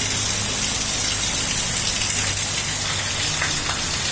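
Heavy rain falling, a steady even hiss of rain on surfaces.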